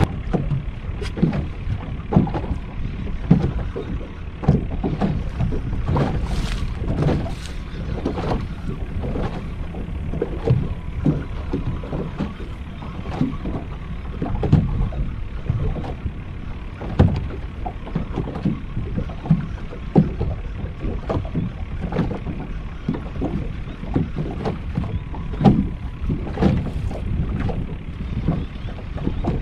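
Small waves slapping against the hull of a small fishing skiff in irregular knocks, over a steady rumble of wind on the microphone.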